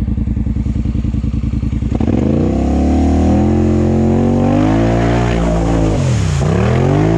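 ATV engine ticking over, then revving up about two seconds in and pulling hard through a water-filled trench. Its revs drop sharply and climb again near the end as water sprays up around the machine.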